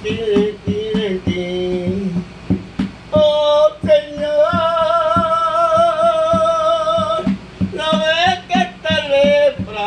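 A man singing a Spanish hymn without clear words, his head pressed against a plastic bucket, with short notes and then one long wavering held note in the middle. A steady beat of soft knocks runs under the singing.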